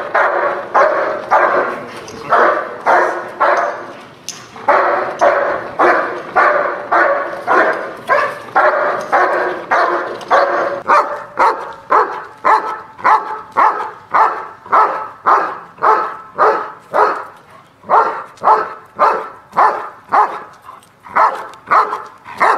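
German Shepherd protection dogs barking again and again at a decoy in a bite suit, the guard barking meant to warn off a threat. About halfway through, the barking settles into an even beat of about two barks a second.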